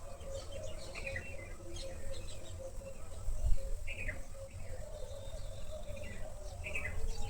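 Birds chirping: a scatter of short chirps, several of them quick downward notes about a second, four seconds and seven seconds in, over a steady low hum.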